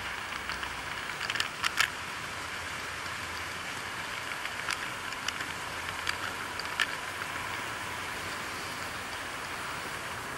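Model train rolling along 00 gauge track, heard from a camera riding on the train: a steady rolling hiss with sharp clicks as the wheels cross rail joints and points, a quick cluster about a second and a half in and a few single ones later on.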